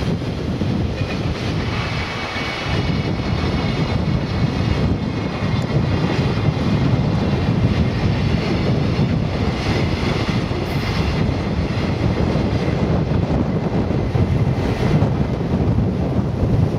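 Container freight wagons rolling past on the track, a steady rumble of steel wheels on rail, with wind buffeting the microphone.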